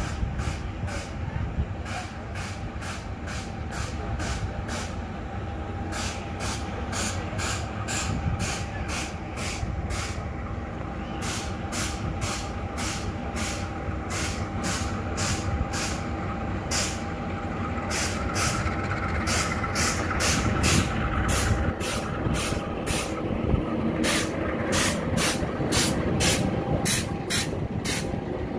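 GE U18C diesel-electric locomotive, with its V8 diesel engine, running as it hauls a rake of grain hopper wagons slowly past. The engine rumble grows louder over the second half as the locomotive comes alongside, over a rapid, regular clicking.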